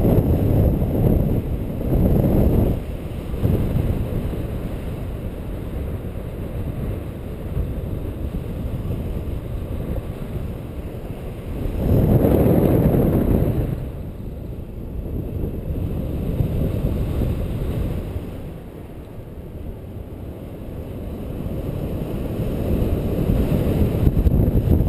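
Wind rushing over the microphone of a paraglider in flight, a steady low rush that swells and fades, loudest at the start, again about twelve seconds in, and toward the end.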